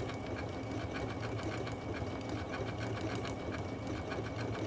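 Janome Memory Craft 14000 sewing machine stitching a decorative stitch at medium speed: a steady motor hum with rapid, even needle ticks.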